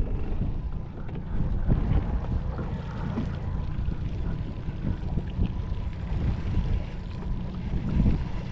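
Strong wind buffeting the microphone with an uneven low rumble, and a few faint knocks.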